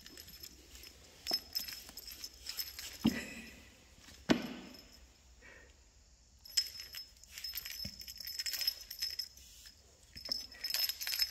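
Small bell jingling in quick clusters as a cat wand toy is shaken and batted by a kitten, with a couple of louder knocks about three and four and a half seconds in.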